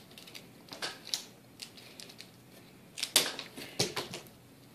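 Plastic clothes hanger clicking and clattering, with cloth rustling, as a T-shirt is taken off it: a few clicks about a second in, then a louder cluster about three seconds in.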